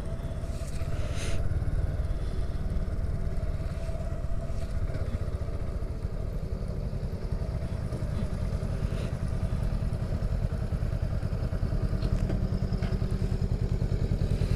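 Honda Grom's 125cc single-cylinder engine idling with a steady low pulsing, while a second motorcycle rolls up and stops alongside.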